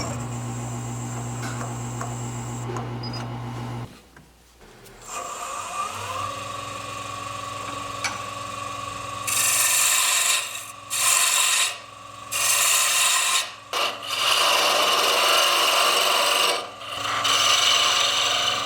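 A wood lathe motor runs steadily, stops about four seconds in, then starts again and spins back up. From about nine seconds in, a tool or abrasive is pressed against the spinning birch blank in five scraping, hissing passes, with short breaks between them.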